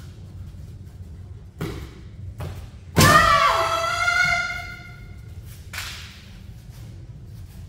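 Kendo sparring: a couple of short knocks, then about three seconds in a sharp hit followed by a woman's long, high-pitched kiai shout, the loudest sound, dying away after about a second and a half; another short knock near the end.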